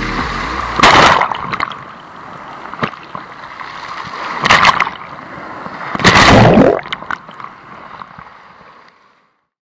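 Water sloshing and gurgling around a camera held in the sea, with three loud surges, the sound fading out near the end.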